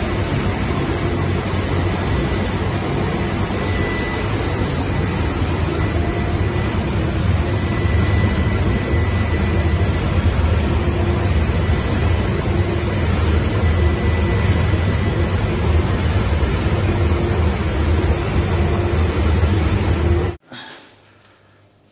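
Diesel engine driving a fire pump, running steadily and loudly with a deep hum on its test run after an overhaul for engine oil mixing with coolant. The sound cuts off abruptly about twenty seconds in.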